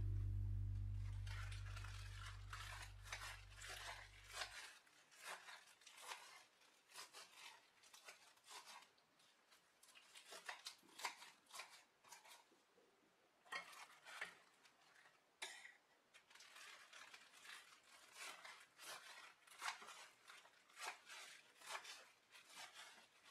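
Knife slicing through a pile of fresh spinach leaves on a cutting board: a long run of quiet, quick cuts with short pauses between bursts. A low held note of background music fades out over the first few seconds.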